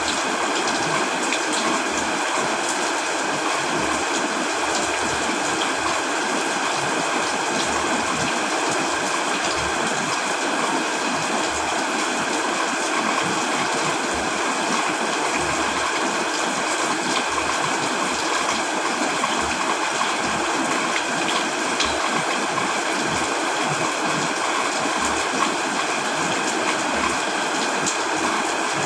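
Steady rain falling with running stream water, an even, unbroken hiss with faint scattered drips.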